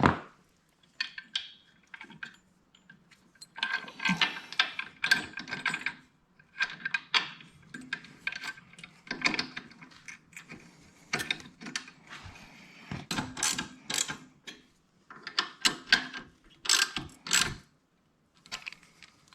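Hand socket ratchet clicking in repeated short bursts as the new, longer floorboard-extension bolts are run in by hand, before they are torqued.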